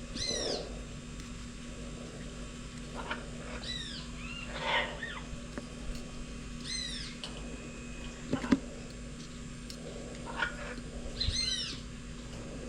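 A bird calling four times, short high calls that rise and fall in pitch, a few seconds apart. A couple of sharp knocks come about two-thirds of the way through.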